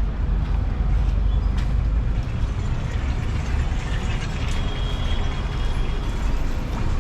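City street traffic: a steady low rumble of passing vehicles with scattered small knocks and clicks.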